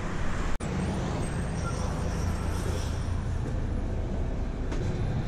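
Street traffic noise that cuts off sharply about half a second in, then the steady low rumble of a city bus engine and road noise heard inside the cabin of an open-windowed bus.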